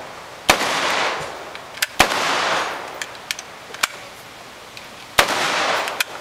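Rifle shots fired one at a time: three loud cracks, about half a second, two seconds and five seconds in, each trailing off in a long echo, with a few fainter sharp clicks between them.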